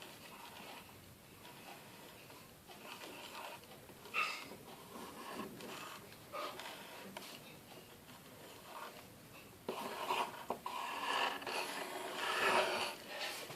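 Faint scratching of drawing on paper, in short irregular strokes that grow busier near the end.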